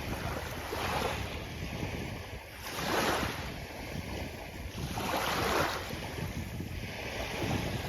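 Sea waves breaking and washing onto a beach, with two surges of surf a couple of seconds apart and wind rumbling on the microphone.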